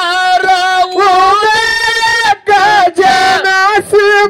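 A man singing a Kannada Dollina pada (Dollu folk song) solo into a microphone, holding long wavering notes with short breaths between phrases; no drum is playing.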